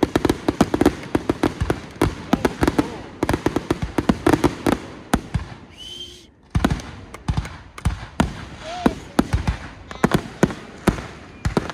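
Fireworks going off: a dense run of sharp pops and crackles, many a second, with a brief lull about six seconds in.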